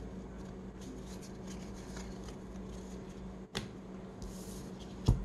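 Baseball trading cards being handled and slid in the hand, a faint rustle over a steady low hum. A sharp click comes about three and a half seconds in and a louder knock near the end.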